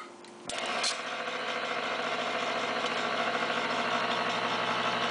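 Countertop electric can opener switching on with a click about half a second in, then its motor running steadily as it turns and cuts open a metal can.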